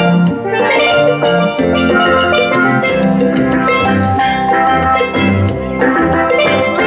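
Steelpans (steel drums) playing a lively tune: quick runs of struck, ringing notes over a rhythmic low part.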